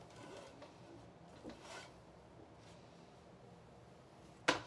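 Faint, brief rustles of fingers wiping lint off a clothes-dryer lint screen, then a single sharp knock near the end.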